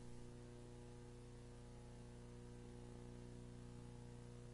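Near silence: a faint, steady electrical mains hum with a light hiss underneath.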